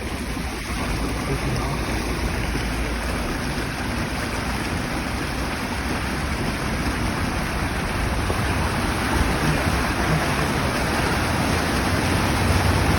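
Floodwater rushing in a steady noisy stream, with a low rumble underneath.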